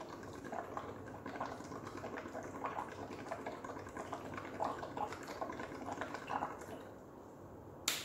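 A thin stirrer ticking and clinking against the sides of a small plastic cup of water as it is stirred quickly, a few light ticks a second, stopping about a second before a sharper click near the end.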